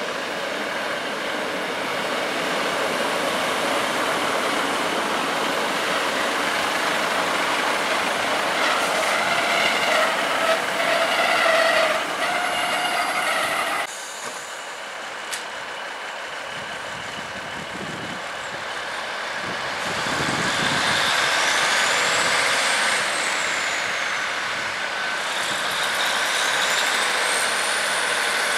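A diesel multiple unit rolls past with a steady rumble of wheels and engines, with pitched tones riding on top about nine to twelve seconds in. It cuts off abruptly. Then a Class 150 diesel unit with a Cummins engine pulls away from the platform, its engine revving, with a high whine that climbs and falls and then climbs again.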